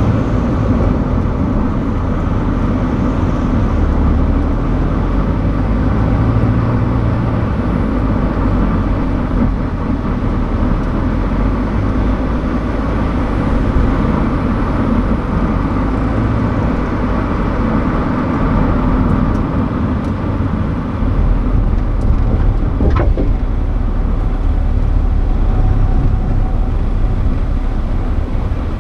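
Car driving along the road, heard from inside the cabin: a steady rumble of engine and tyre noise, with a single short click about two-thirds of the way through.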